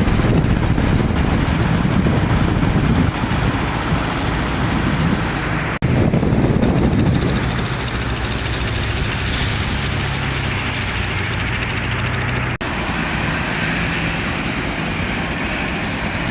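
Heavy bauxite ore-processing plant machinery running with a loud, steady rumble and a low hum. The sound breaks off sharply and restarts twice, about 6 and 12.5 seconds in.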